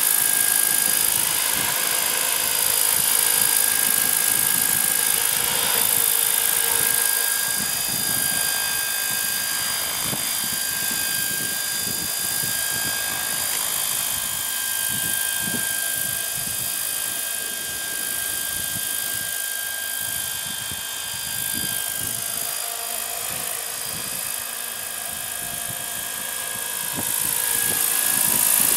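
Gaui Hurricane 550 electric RC helicopter hovering: the steady high whine of its brushless motor and gears over the whir of the main and tail rotors. It gets louder near the end.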